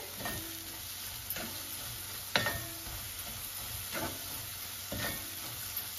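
Wooden spatula stirring and scraping spiced, diced green apple in a cast-iron kadai, with a light sizzle of the mixture frying in oil as it is sautéed. One sharp knock about two and a half seconds in.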